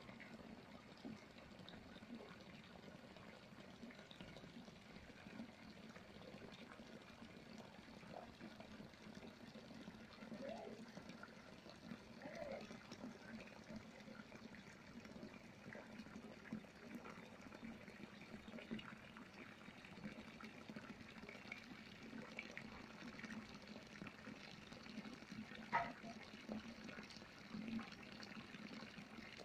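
Light rain falling, a faint, steady water sound, with one sharp click near the end.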